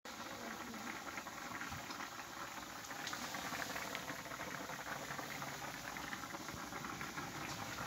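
Food bubbling and simmering in a cooking pot, a steady stream of many small pops.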